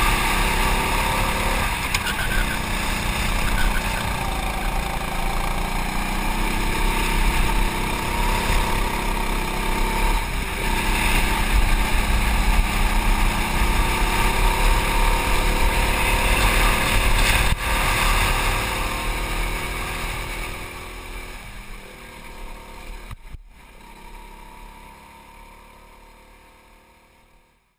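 Go-kart engine heard from on board during a lap, its revs rising and falling through the corners. It fades away over the last ten seconds.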